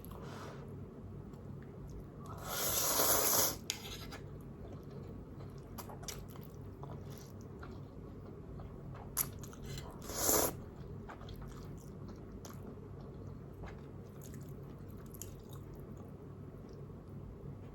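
Close-miked eating of Nongshim non-fried spicy instant noodles: soft chewing with many small wet mouth clicks, and two louder rushing bursts about a second long, one a few seconds in and one about ten seconds in.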